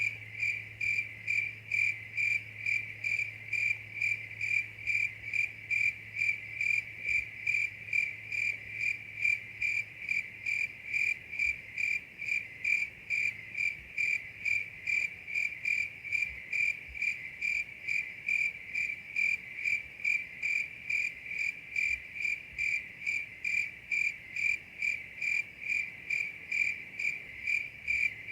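A cricket chirping evenly, about two chirps a second, in a light night ambience. A faint low hum underneath fades out about a third of the way in.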